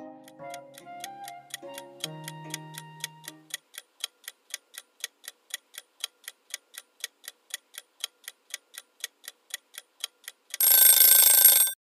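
Countdown-timer sound effect: a clock ticking evenly at about four ticks a second, with a soft flute melody fading out under it in the first few seconds. Near the end a loud ringing alarm sounds for about a second as the timer runs out, then cuts off.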